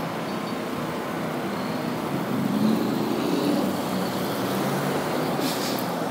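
Steady street traffic with a motor vehicle's engine running nearby, swelling slightly midway.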